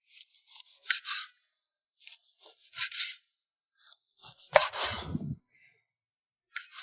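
Kitchen utensil work: three short bouts of quick scraping or chopping strokes, with one heavier thud about two-thirds of the way through and a brief last stroke near the end.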